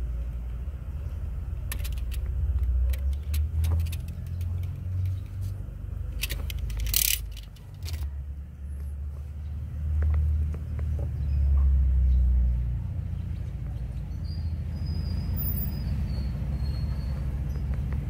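Small sharp clicks and scraping of a utility knife working on a car wire's insulation, with one louder scrape about seven seconds in, over a steady low rumble.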